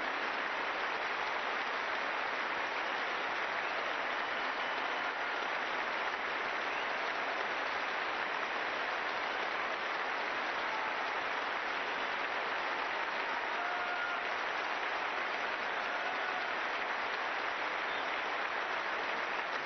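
Large concert audience applauding steadily, a dense even clapping.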